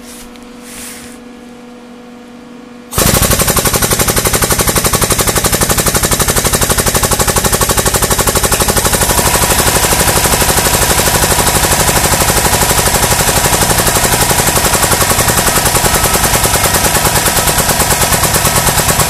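Harbor Freight 8-ton air-over-hydraulic ram's air pump starting suddenly about three seconds in and chattering rapidly, extending the ram. Fed only 90 PSI, it extends too slowly; the ram needs about 120 PSI.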